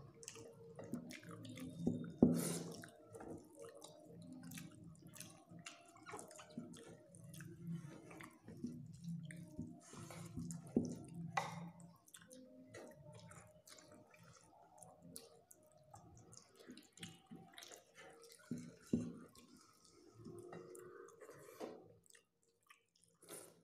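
Close-up eating by hand: wet chewing and small mouth clicks, with fingers mixing rice and curry on a metal plate.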